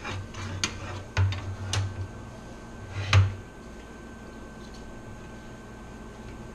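Scattered clicks and knocks of computer hardware being handled during a cooler radiator install, the loudest about three seconds in, followed by a steady faint hum.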